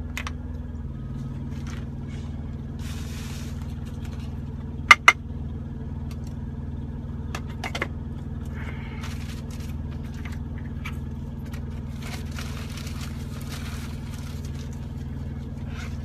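Steady low hum of an idling truck engine, with rustling and scraping of a zip-top plastic bag and two sharp clicks about five seconds in.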